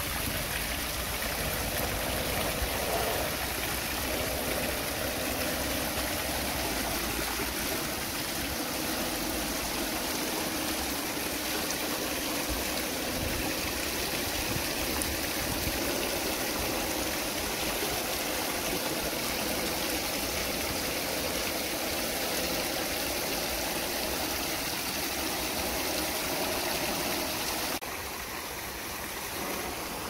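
Water rushing steadily over a small rocky waterfall and down a stream, turning quieter shortly before the end.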